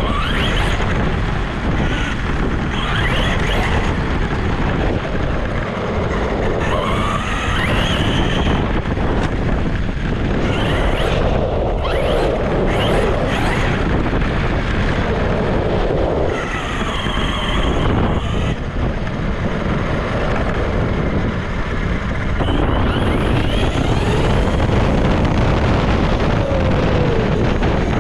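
Traxxas Sledge RC truck driving on asphalt, heard from a camera mounted on it: heavy rumble from tyres and wind on the microphone, with the brushless motor's whine rising and falling repeatedly as the throttle is worked.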